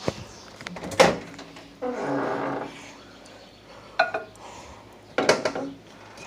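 Handling clicks and knocks, the loudest about a second in, as a plate of gummies goes into a microwave oven and its door is worked. A short pitched whine sounds about two seconds in.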